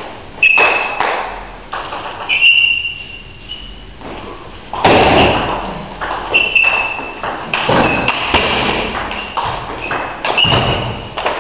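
Table tennis rally: the ball clicking and pinging off rackets and the table, irregularly, with heavier thuds of players' feet on the wooden floor, echoing in a large hall.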